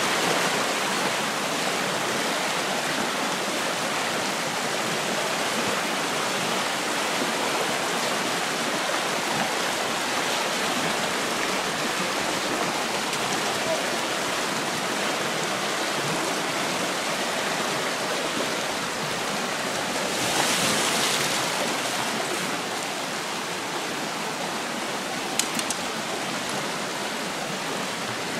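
Shallow, rocky stream rushing steadily over riffles. It swells briefly louder about two-thirds of the way in, and a few sharp clicks sound near the end.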